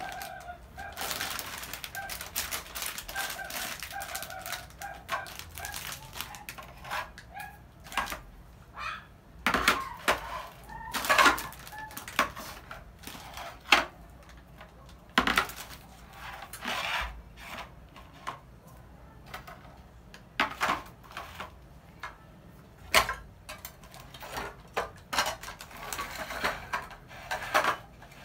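Tins and plastic-wrapped milk packs being handled and set down on a tiled floor: crinkling plastic and scattered knocks of cans, with several sharp knocks through the middle stretch.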